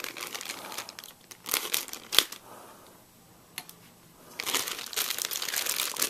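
Clear plastic bag crinkling in the hands as a Leatherman bit set is worked out of its packaging: scattered rustles with a few sharp clicks at first, then continuous crinkling from about two thirds of the way in.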